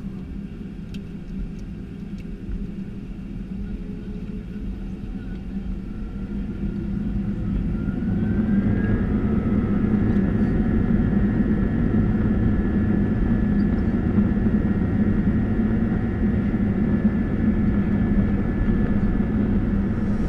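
Airbus A320 jet engines heard from inside the cabin, spooling up with a rising whine about seven to nine seconds in, then running steady and louder: typical of the engines going to takeoff thrust.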